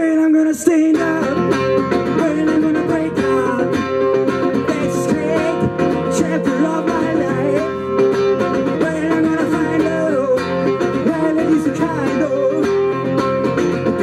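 Metal-bodied resonator guitar played live, continuous picked notes and chords, with a man's voice singing along.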